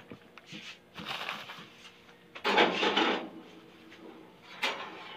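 Household handling noises: two short rustling bursts, the louder one about halfway, and a single sharp knock near the end, over a faint steady hum.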